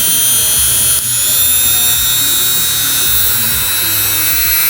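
Oxford 180 W rotary tool (mini grinder) running free with no bit or load on its speed setting 4, a steady high-pitched electric motor whine. About a second in the pitch rises slightly, then holds steady.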